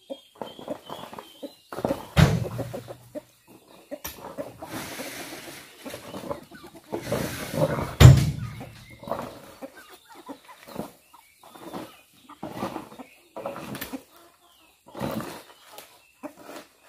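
Chickens clucking, with heavy thuds as oil palm fruit bunches are thrown into the steel bed of a dump truck, the loudest about 2 seconds and 8 seconds in.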